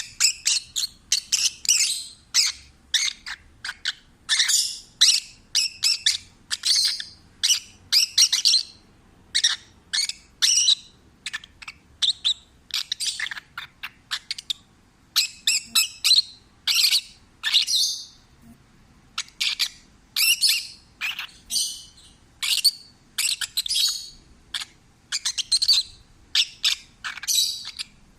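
Peach-faced lovebird chirping in a long, rapid series of short, shrill calls and squawks, a few a second with brief pauses: contented singing.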